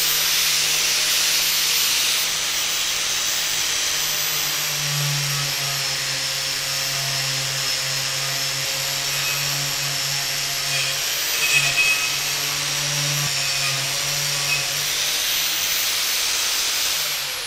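Bosch GWS 800 4-inch, 800-watt angle grinder running with a wire cup brush, scrubbing rust off a steel bar. Its high motor whine holds steady, sags a little in pitch while the brush bears on the metal, and starts winding down near the end.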